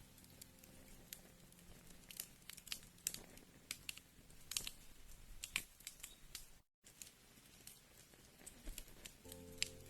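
Wood fire crackling: irregular sharp pops and snaps over a faint hiss, broken by a brief moment of total silence about two thirds of the way through. Soft music comes back in near the end.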